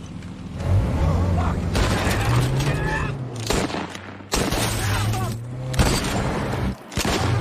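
Action-scene gunfire: bursts of shots with sudden jumps in loudness, over a low steady hum, with some raised voices.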